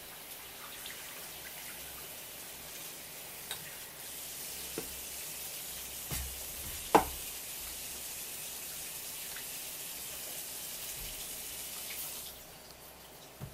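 Soy-sauce broth simmering in a metal pan: a steady bubbling hiss, with a few light clicks and one sharp metallic clink about halfway through. The hiss falls away near the end.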